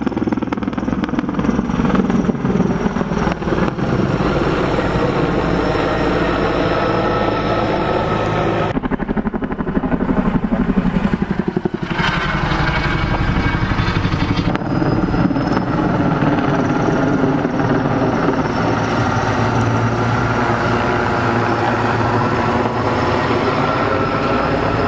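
Heavy firefighting helicopter flying overhead: the steady beat of its rotor blades over a turbine whine whose pitch slowly slides up and down. The sound changes abruptly a few times.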